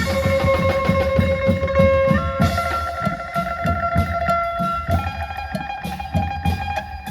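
Electric phin (Isan lute) playing long held notes that step up in pitch twice, over a steady beat of klong yao long drums.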